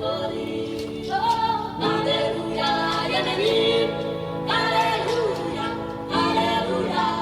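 Music with voices singing, choir-like, the chords shifting every couple of seconds.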